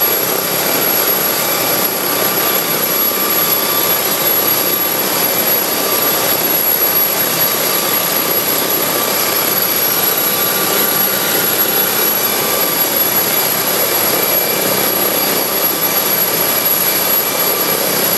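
London's Air Ambulance MD 902 Explorer helicopter's twin turbine engines running steadily on the ground: a loud, even rush with a thin high whine.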